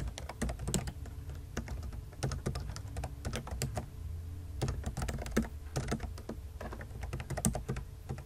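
Typing on a computer keyboard: a run of quick, uneven keystroke clicks, several a second, over a low steady hum.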